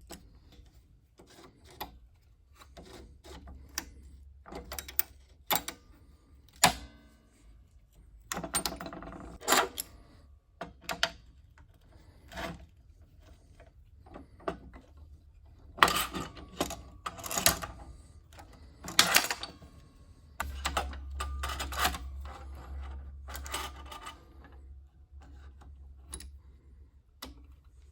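Steel fixture parts, 1-2-3 blocks and clamps being set down, shifted and clamped on a steel welding table: irregular metal clicks and clanks, some in quick clusters, with short scrapes between.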